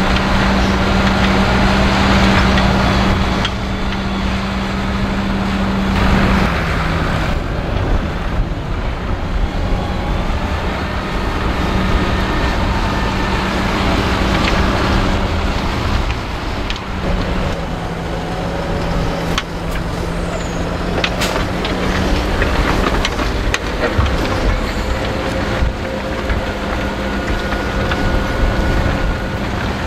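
Fendt 724 tractor's six-cylinder diesel engine running steadily while pulling a six-furrow reversible plough. The engine note drops about six seconds in and changes again partway through.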